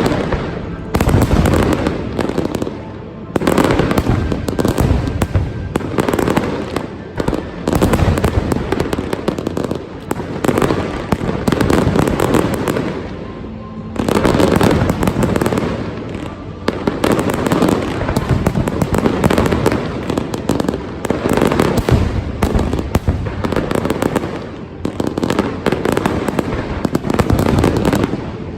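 Aerial fireworks display: dense volleys of bangs and crackling, one after another, with brief lulls between them.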